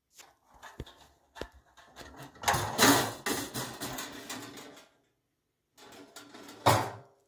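Galvanised metal dustbin rattling and clanking against its strap and pole as a honey badger pushes and pulls at it. A few knocks, then a dense burst of clatter in the middle, and one loud clank near the end.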